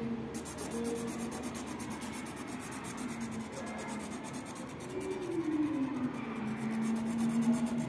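Felt-tip marker scratching on paper in quick, even back-and-forth colouring strokes. Underneath is a faint low tone that glides down in pitch about five seconds in.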